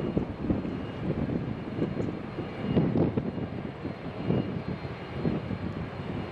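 Jet engines of a KLM Airbus A330 taxiing and turning at low thrust: an uneven low rumble with a faint steady high whine.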